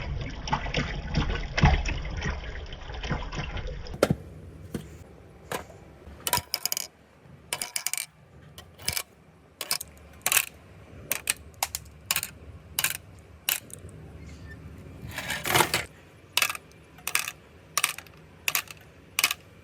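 Marbles clicking and clattering along a handmade marble run: a dense rattle for the first four seconds, then single sharp clicks and clacks at irregular intervals, one or two a second.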